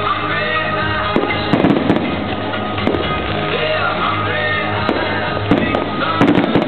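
Fireworks banging and crackling in quick irregular bursts over loud music with a steady bass.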